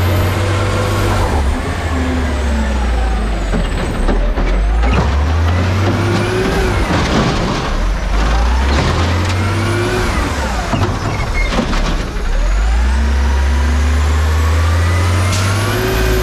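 Garbage truck's diesel engine pulling away and easing off as the truck drives, its pitch climbing and dropping several times through the gears. Short knocks and rattles are mixed in.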